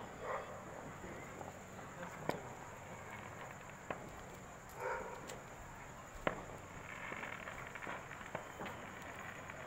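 Outdoor night ambience with faint distant voices, a steady high-pitched whine and a low hum, broken by a few sharp isolated pops spaced a couple of seconds apart.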